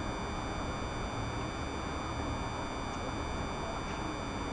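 Steady city traffic noise, an even hum with no single event standing out.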